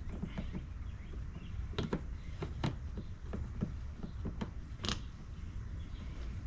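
Scattered light clicks and knocks from the generator's parts being handled and fitted, over a low steady background rumble.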